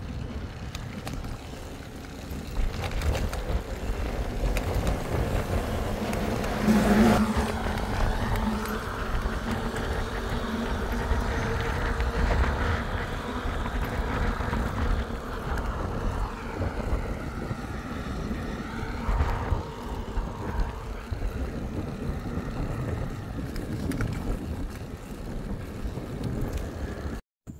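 Wind rumbling on the microphone of a camera carried on a moving bicycle, with road traffic going by. It swells about seven seconds in and cuts off abruptly just before the end.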